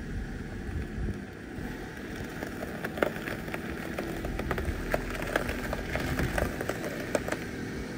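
A car being driven out of a snowy spot: a low engine rumble, with many short crackles of snow and ice crunching under the tyres from about three seconds in.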